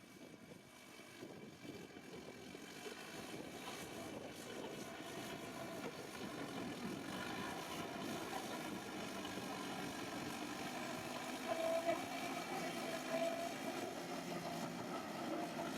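Heavy diesel earthmoving machine engine running, growing steadily louder over the first several seconds and then holding steady.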